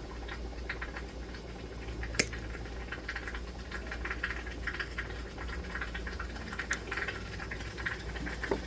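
Small irregular ticks and crackles of work at a jeweler's soldering bench, with one sharper click about two seconds in, over a steady low hum.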